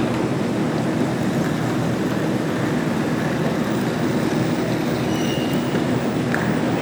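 Steady low rumble of airport ambience, with a few faint, brief high tones near the end.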